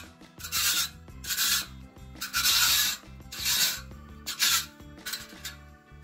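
Wire tines of a homemade fan-guard rake scraping over a concrete floor, about six separate dragging strokes through dry grass.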